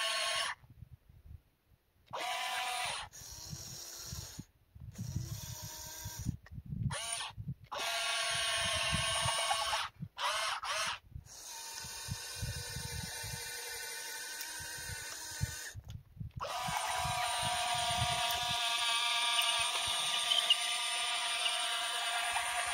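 RC model excavator's motors whining in steady tones that start and stop abruptly as the machine is worked, with rough scraping and crunching of dirt and rocks in the middle stretch.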